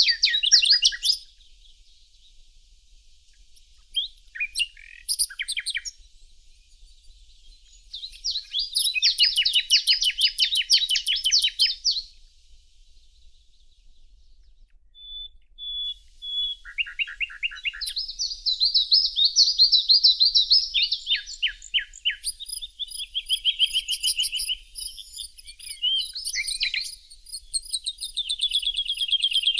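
Songbirds singing: phrases of rapid, high trilled notes, separated by short pauses. In the second half several birds sing at once, their songs overlapping.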